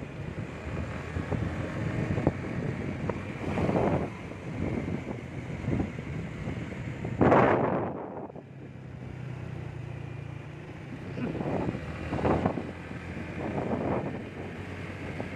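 Motor vehicle engine running steadily, with wind gusting on the microphone in several loud rushes, the strongest about halfway through.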